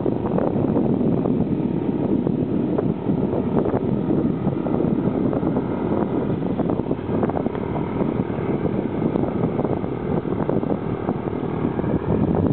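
Wind buffeting the microphone of a camera carried on a moving bicycle: a steady, rough rush with irregular gusty flutter.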